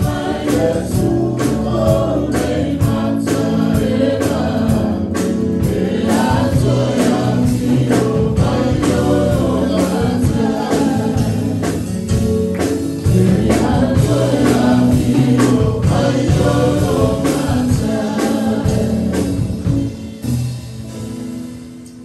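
Live gospel worship song: several singers together, accompanied by acoustic guitar and drums, fading out near the end as the song finishes.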